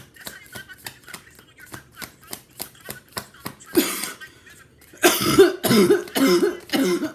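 Soft, quick clicking, then a woman coughs: one cough about four seconds in, followed by a run of four coughs near the end.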